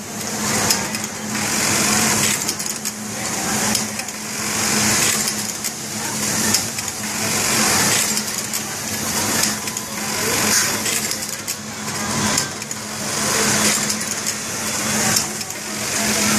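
Steady hum of garment-factory machinery, with a hiss that swells and fades about every two seconds and scattered short clicks.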